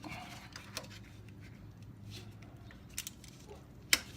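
Small metallic clicks and scrapes of a locking oil filter wrench being worked on a motorcycle oil filter to loosen it. A single sharp, loud click comes near the end.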